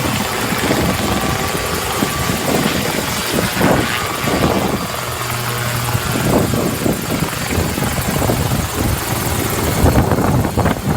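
Helicopter running close to the microphone: the rotor's rapid, even chopping over the engine's noise.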